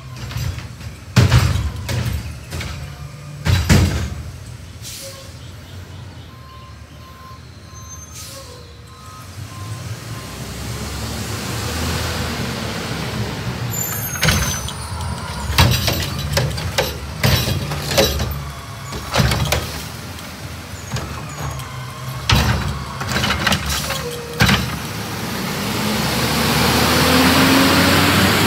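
Autocar Xpeditor garbage truck with a Curotto-Can cart arm at work: its engine runs steadily, with air-brake hisses and repeated sharp bangs and clanks as carts are lifted and emptied. Near the end the engine swells with a rising hum as the truck pulls forward close by.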